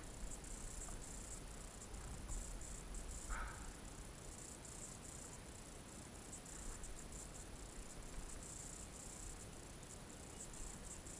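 Crickets chirping steadily in fast, even pulses, with a low rumble underneath and one brief mid-pitched sound about three seconds in.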